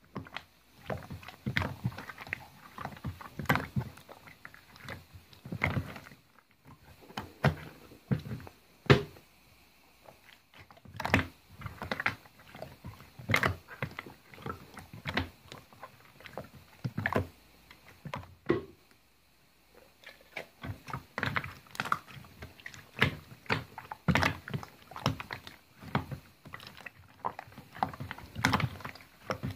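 Slime being squeezed, folded and stretched by hand, making a run of irregular wet clicks, squelches and small pops, with a few brief pauses.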